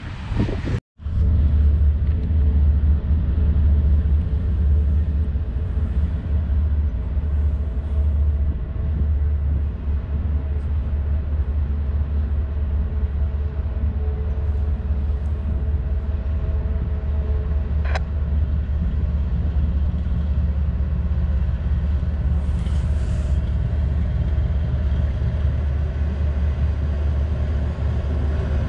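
Steady low rumble of an approaching Norfolk Southern freight train's diesel locomotives, with a short break in the sound about a second in and a single sharp click about 18 seconds in.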